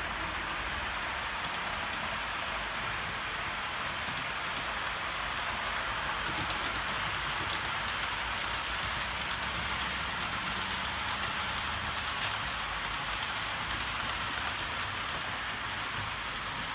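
Model trains running on the layout track: a steady, even hiss with a faint low rumble underneath.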